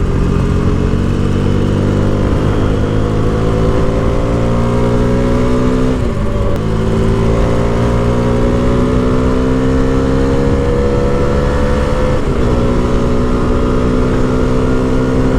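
KTM 250 Duke's single-cylinder engine accelerating hard up to about 110 km/h. Its pitch climbs steadily and drops briefly at two upshifts, about six and twelve seconds in.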